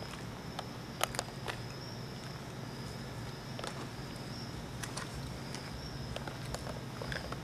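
Crickets chirping in a steady high band over a low hum, with a few sharp clicks scattered through.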